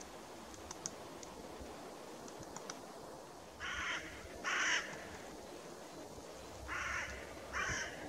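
Faint light taps of a great spotted woodpecker pecking at tree bark, then four loud, harsh bird calls in two pairs from about three and a half seconds in.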